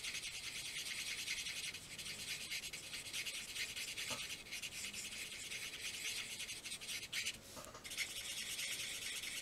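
Tip of a Stampin' Blends color lifter, an alcohol-marker blender, scrubbing in small circles on cardstock: a fast, steady, scratchy rubbing that lets up briefly near the end.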